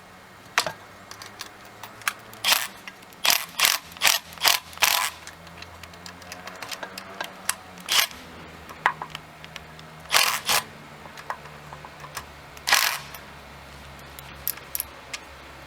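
Ratchet wrench clicking in short runs with pauses between, tightening the locking nuts on the hydrofoil's mounting bolts.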